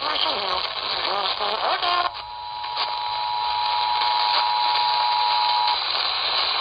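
AM radio with static hiss: a voice for about two seconds, then the Emergency Alert System attention signal, a steady two-note alert tone, starts suddenly, holds for about three and a half seconds and cuts off.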